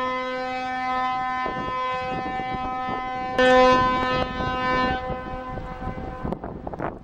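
A ship's horn sounding one long, steady blast on a single unchanging note, growing louder about three and a half seconds in and stopping about a second before the end.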